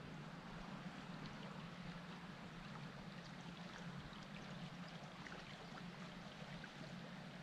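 Faint, steady rush of a flooded creek's fast-flowing water, with a few scattered faint ticks.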